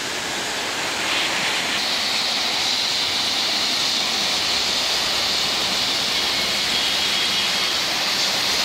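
Heavy rain pouring steadily onto a street, an even hiss that grows a little brighter about two seconds in.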